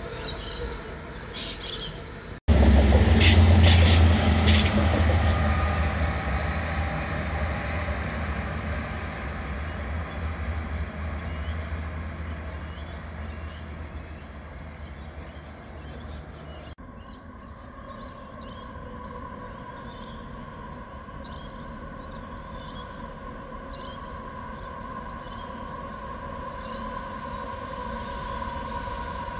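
Diesel-electric locomotives of coal trains running. About two seconds in comes a sudden loud, deep engine rumble that slowly fades away. In the later part a steady hum and whine rises gradually as a train approaches, with birds chirping over it.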